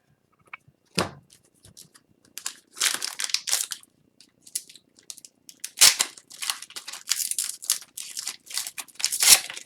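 Wrapper of an Upper Deck Series 1 hockey card pack being torn and crinkled open in two spells, with a knock about a second in. The pack is stubborn to open.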